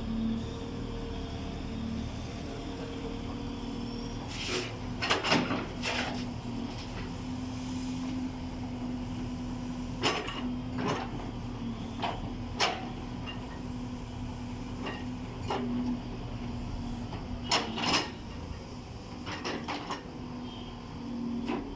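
Tata Hitachi excavator's diesel engine running steadily with a constant hum, while sharp clanks and knocks from the digging work come in clusters every few seconds.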